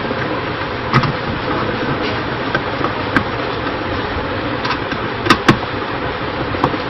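Steady background hiss with a few sharp clicks and taps from a small screwdriver and the plastic switch-socket plate being screwed down onto the board, two of them close together the loudest.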